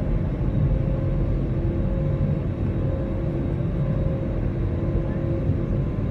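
Cabin noise inside an Airbus A320neo, heard from a window seat: a steady, deep rumble of its Pratt & Whitney PW1100G geared turbofan engines and the airflow, with a faint hum that wavers on and off.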